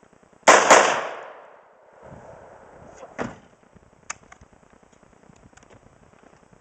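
AR-15 rifle firing two shots in quick succession, loud and sharp, with a ringing echo trailing off over about a second. A weaker sharp knock follows about three seconds in and a short metallic click about four seconds in.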